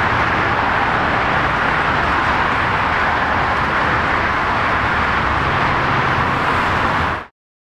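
Rolls-Royce Trent 7000 turbofans of an Airbus A330-900 running at taxi power, a steady jet rush with a low rumble beneath. It cuts off abruptly near the end.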